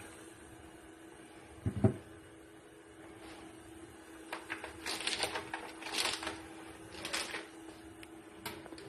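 Packaging machine running with a steady hum, a single heavy knock about two seconds in, then bursts of clattering mechanical clicks about once a second in the second half.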